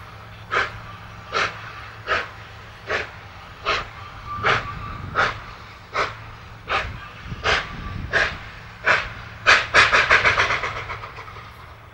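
Victorian Railways R class 4-6-4 steam locomotive R761 labouring up a 1-in-50 grade, its exhaust beating slowly and heavily, about one chuff every three-quarters of a second, as it loses speed toward a stall. Near the end the driving wheels slip: a sudden rapid flurry of exhaust beats that fades away.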